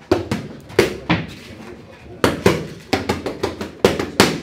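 Boxing gloves smacking focus mitts in a pad workout: quick combinations of sharp punches, a short lull about a second in, then several flurries of rapid shots.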